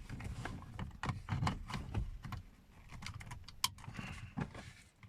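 Irregular plastic clicks, taps and rattling as a car power-window master switch is handled and fitted into place.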